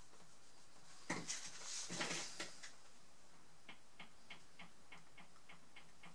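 Brief rustling and scraping of a wooden stirring stick and gloved hands working over a resin-coated canvas, about a second in. It is followed by a steady light ticking, about three ticks a second.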